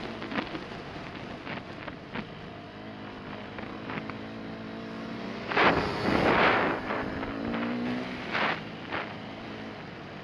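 Dirt bike engine running under way on a dirt track, its pitch changing as the rider works the throttle, with wind on the microphone and a few sharp knocks. About halfway through, another dirt bike, a blue Yamaha YZ250F four-stroke, comes up close alongside, and the combined engine and wind noise surges to its loudest.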